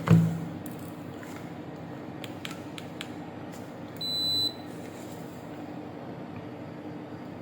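Digital multimeter sounds one steady high-pitched beep of about half a second, about four seconds in, while its probes are on the adapter's fuse. A knock at the start and a few light clicks of probe handling come before it.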